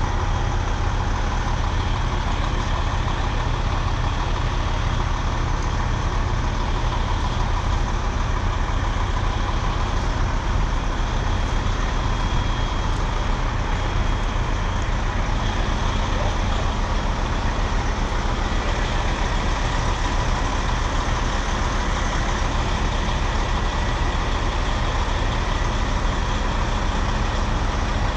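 Large diesel truck engine idling steadily, a low even rumble with no change.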